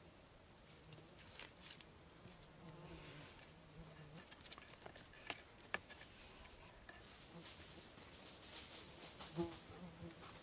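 Faint buzzing of a flying insect that stops about four seconds in, followed by a few light clicks and some rustling.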